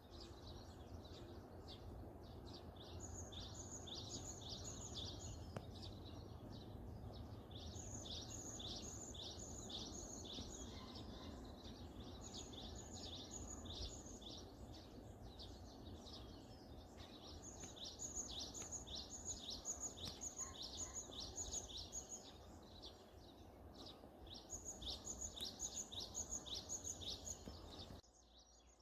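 A songbird singing: runs of quick, evenly spaced high notes repeated every few seconds, with a steady low outdoor background hum beneath.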